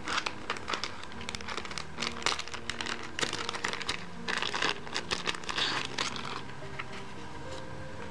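Clear plastic packaging crinkling and rustling as it is handled and unwrapped by hand, in irregular bursts for about six seconds, then quieter near the end.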